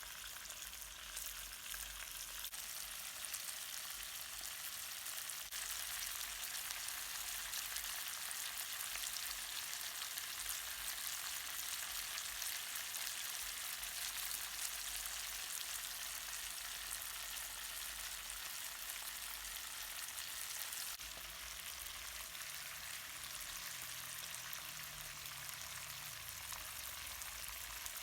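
Fish frying in hot oil in a pan, a steady sizzle.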